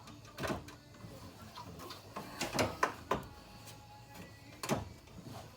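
Scattered clicks and knocks of hand tools and parts being handled: one about half a second in, a quick cluster of several about halfway through, and another near the end.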